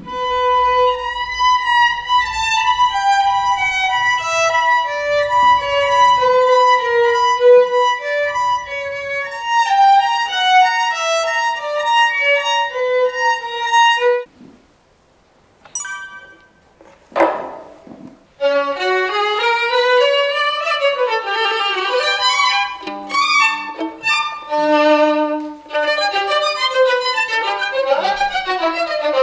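Solo violin, a full-size budget practice violin of about 300,000 won, playing a slow melody that steps downward. It stops about fourteen seconds in; after a short pause and a brief whoosh, a faster violin passage runs up and down, reaching lower notes near the end.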